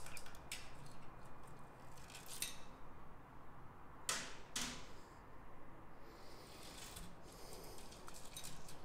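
Honda CBX engine's metal cam chain clinking and rattling as it is drawn up out of the cam chain tunnel with a magnet. Light clicks throughout, with two louder scraping rattles about four seconds in.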